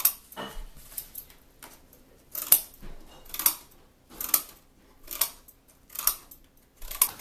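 Lamson Sharp Breakaway Shears cutting through corrugated cardboard. The blades close in a series of sharp snips, roughly one a second.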